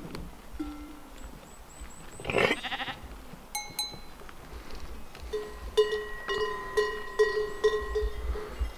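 A sheep bleats once, loudly, about two and a half seconds in, with a bell ringing briefly after it. In the last few seconds a livestock bell clanks rhythmically, about three strikes a second, each with a ringing tone.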